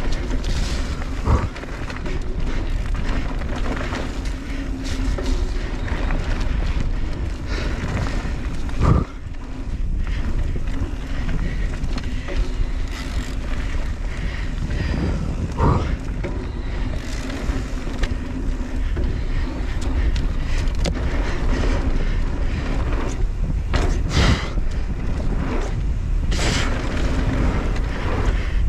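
Mondraker Crafty Carbon R e-mountain bike ridden along a dirt trail, with wind rumble on the microphone and rolling tyre and trail noise. A faint steady hum runs under it, and sharp knocks sound from the bike over bumps, four times.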